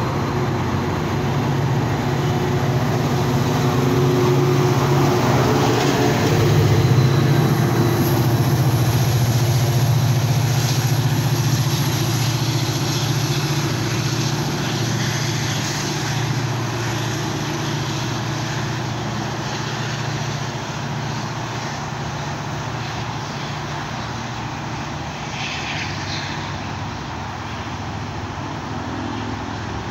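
Diesel locomotive of a Metra commuter train pushing its bilevel coaches away under power: a steady low engine drone with rolling wheel noise, loudest about seven seconds in as the locomotive goes by, then slowly fading as the train pulls away.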